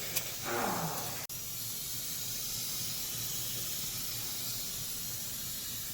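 Steady background hiss with a faint low hum, broken about a second in by a sudden dropout. Just before it there is a click and a short falling sound.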